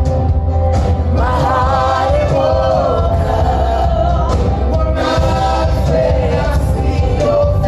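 Live gospel-style worship music: a band playing with singers, their voices wavering over a heavy, steady bass.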